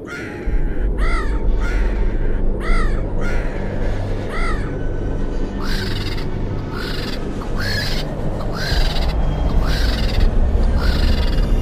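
Crows cawing over and over, a harsh caw roughly once a second, over a low steady drone.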